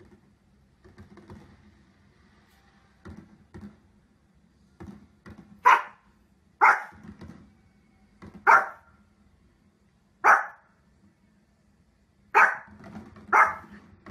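Small dog barking at fireworks on a television: six short, sharp single barks a second or two apart, starting about six seconds in, with a few fainter sounds before the first.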